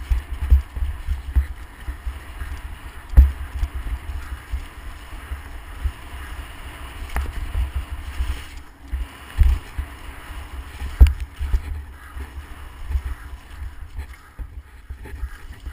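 Mountain bike descending a dirt trail, heard through a camera mounted on the bike: uneven low rumble and buffeting from wind and tyres on the ground, with sharp knocks from bumps, the biggest about three seconds in and again near eleven seconds.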